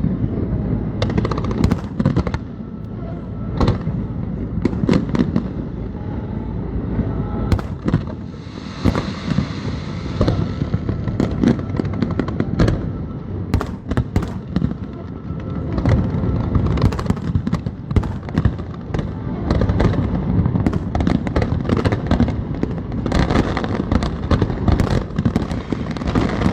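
Aerial fireworks display going off in a rapid, continuous barrage of bangs and crackles over a deep rumble, with a stretch of hissing about nine seconds in.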